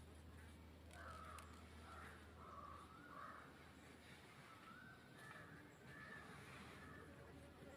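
Faint bird calls, a run of short wavering calls repeated about every second, over a steady low hum.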